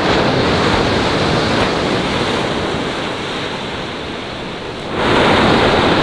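Pacific surf breaking and washing up a sandy beach in a steady rush. It slowly eases, then swells again sharply about five seconds in.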